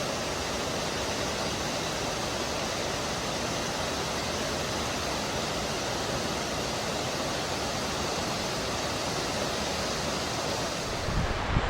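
Steady rush of a waterfall on the Little Mashel River, with a few low bumps on the microphone near the end.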